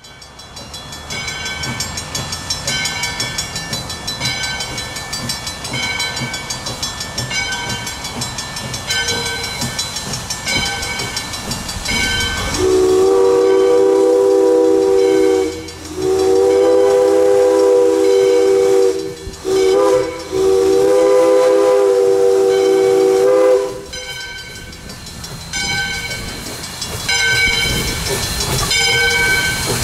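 Steam locomotive Valley Railroad #40 departing: its bell rings about once a second, then its steam whistle blows four blasts, long, long, short, long, the grade-crossing signal, and the bell carries on ringing afterwards, over a steady hiss of steam.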